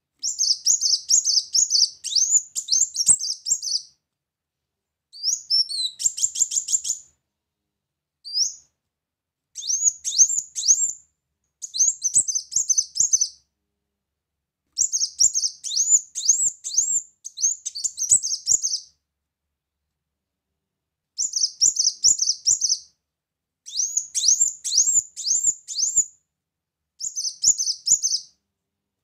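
Kolibri muncang (ruby-cheeked sunbird) singing: bursts of rapid, high, sharp chirps strung into phrases one to four seconds long, broken by short pauses. This is the male's song as used for pancingan, a recording played to provoke other sunbirds into singing.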